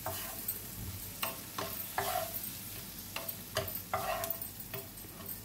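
Prawns frying in a non-stick double-sided pan with a faint sizzle while a spatula stirs them, scraping and tapping against the pan every half second to a second to coat them in ground pepper masala.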